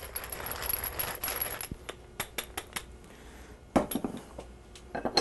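Hand pepper mill grinding black peppercorns: a dense, gritty crackle of fine ticks for about the first second and a half. After that, only scattered light clicks and a couple of knocks.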